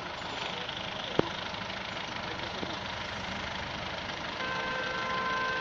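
Vehicle engine running steadily, heard from inside the vehicle, with a sharp click about a second in. Near the end a steady held tone with several pitches comes in.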